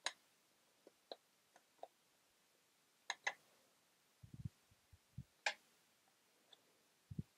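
Faint, sparse clicks from the mini sewing machine's plastic cogs and hook race being turned and shifted by hand, with a few soft low knocks from handling a little past halfway. The hook race is being moved back one cog position to slow the hook's timing.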